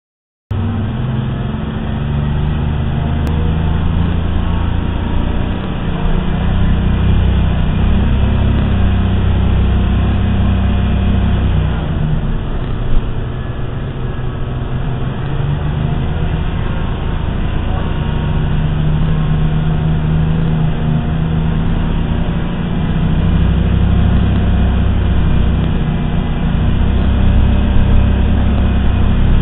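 Inside the cabin of a 1988 Orion I transit bus: its engine, which the rider calls a bad engine, runs under way with a heavy low drone that swells and eases every few seconds, over road noise. A single sharp click about halfway through.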